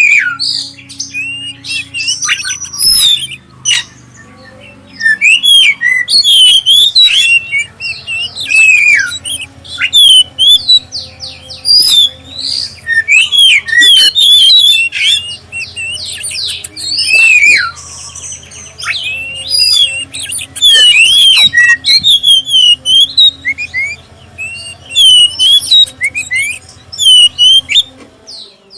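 Oriental magpie-robin (black-breasted kacer) singing a loud, varied song of rapid whistled notes, rising and falling glides and quick trills, broken by short pauses. The recording is of the kind played as a lure to prompt other kacer to sing.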